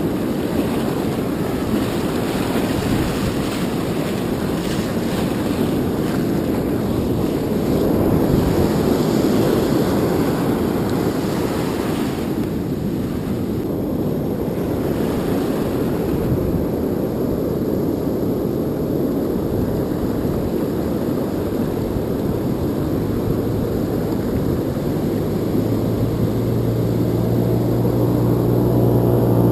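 Continuous low rumble of wind buffeting the action-camera microphone, mixed with surf breaking and washing around the wader. Near the end a low steady hum with overtones fades in and grows.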